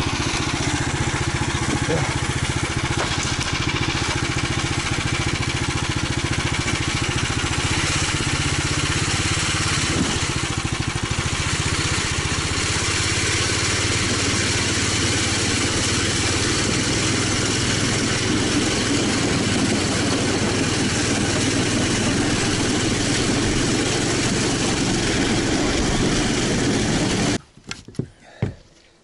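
Snowmobile engine running steadily under way. It cuts off abruptly near the end, and a few separate knocks follow.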